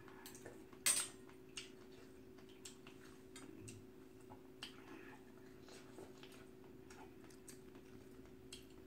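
Small irregular clicks and clinks of metal chopsticks and a spoon against bowls while eating, with one sharper clink about a second in, over a steady low hum.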